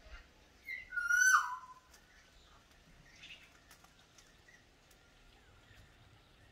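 A bird's loud whistled call about a second in: a short higher note, then a longer whistle that wavers and slides down in pitch. Faint background noise otherwise.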